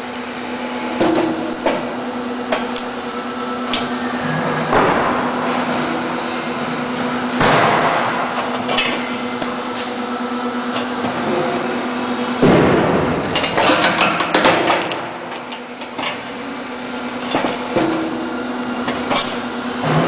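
Hydraulic unit of a Steinex Igloo 480 stone splitter humming steadily. A few times the blade comes down and splits limestone blocks with loud cracking, amid repeated knocks of stone on the machine's steel table.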